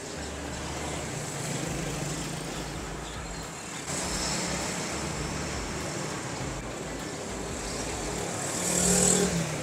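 Street traffic: a steady rumble of passing vehicles, swelling as one goes by near the end.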